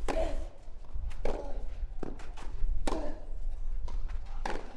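Tennis ball struck back and forth in a rally: sharp knocks from racket hits and court bounces about every second, each with a brief echo, over a low rumble.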